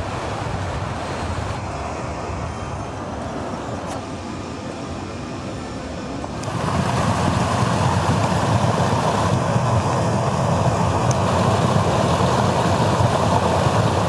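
Rushing mountain stream water, a steady noise that gets louder about six and a half seconds in.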